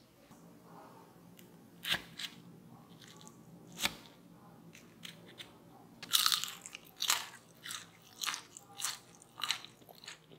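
Crispy fried potato bites crunching as they are bitten and chewed: a few separate sharp crunches, then from about six seconds in a steady run of crunchy chewing, a little under two crunches a second.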